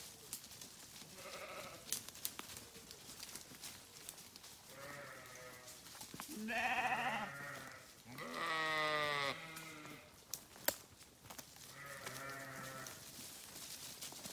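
Sheep bleating, about five separate calls, the loudest a long wavering bleat about eight seconds in. Light clicks and rustles come between the calls.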